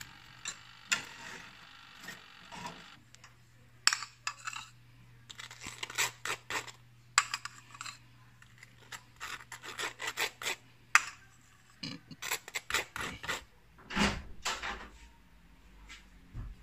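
A metal spoon scraping and clinking against a ceramic plate and bowl in irregular short strokes, with a heavier knock near the end.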